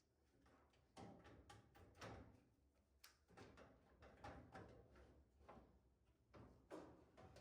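Faint, irregular knocks and clicks, a few a second, as of parts being handled.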